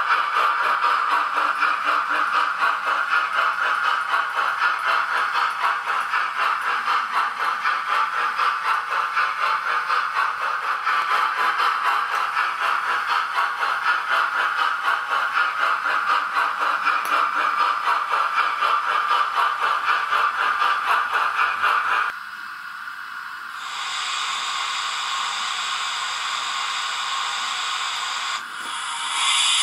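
Model steam locomotive's sound decoder playing rhythmic steam chuffing through its small speaker as the engine runs. About 22 seconds in the chuffing stops and gives way to a quieter steam hiss, and a louder burst of steam sound comes in near the end.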